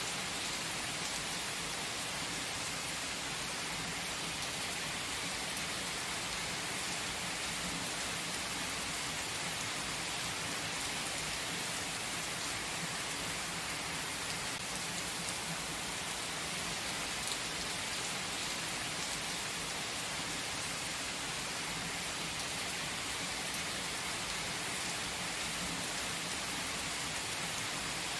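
Steady rain falling on forest foliage, an even hiss with a few louder single drops.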